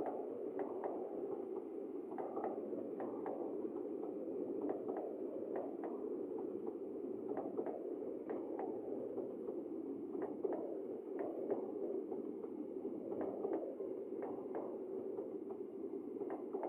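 Steady rain, with scattered drops tapping close by, a few each second at irregular intervals.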